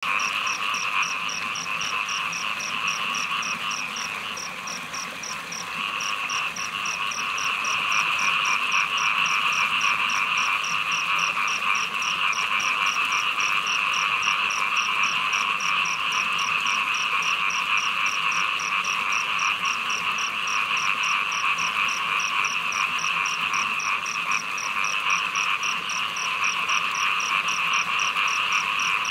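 A dense chorus of many small frogs calling at once, a steady mass of overlapping calls. It dips a little about four seconds in and swells back up. This is the chorus frogs raise on a rainy night.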